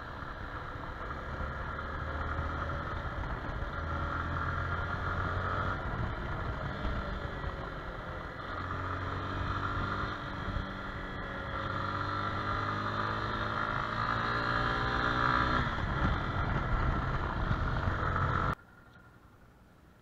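Yamaha XTZ Ténéré 250's single-cylinder engine running on the move, its revs climbing twice as the bike accelerates. The sound cuts off abruptly near the end.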